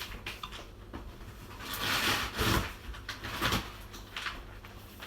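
Rummaging while searching for a packet: a rustle about two seconds in, and a few light knocks and clatters of things being moved.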